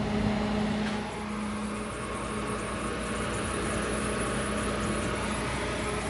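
Refrigerator running with its freezer open: a steady hum from the evaporator fan and cooling system as the evaporator frosts up. A low steady tone in the hum weakens about two seconds in.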